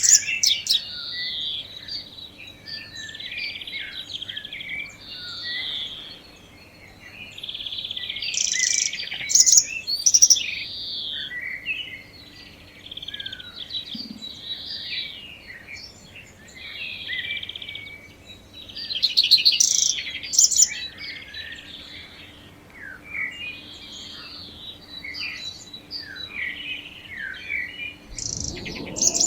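Many birds chirping and singing, in dense overlapping song. Near the end an outdoor warning siren begins to wind up, its pitch rising.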